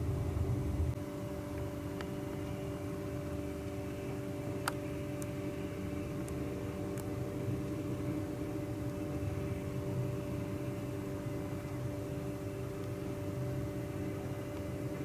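Boeing 737-500's CFM56 jet engines at taxi idle, heard from a distance: a steady hum with several held tones over a hiss. A lower rumble drops away about a second in.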